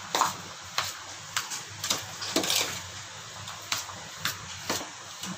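Steel spoon scraping and knocking against a stainless steel bowl while stirring a rice and potato mixture, in short, uneven strokes about two a second.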